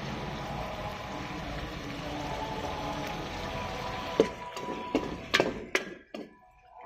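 Onions and garlic cooking in oil in an aluminium pot, a steady sizzle. From about four seconds in, a spatula stirs the mixture, scraping and knocking sharply against the pot four times.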